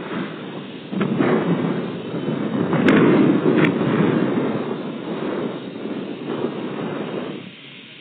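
Wind buffeting the microphone in gusts, a low rumbling noise that swells to its loudest about three seconds in and eases off near the end, with two faint clicks close together at the peak.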